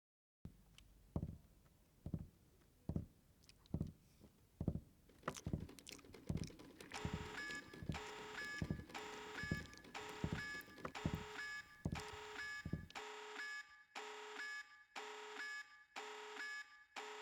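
A run of evenly spaced dull thuds, about one a second. From about seven seconds in, an electronic beeping repeats in a steady rhythm. The thuds stop about thirteen seconds in while the beeping goes on.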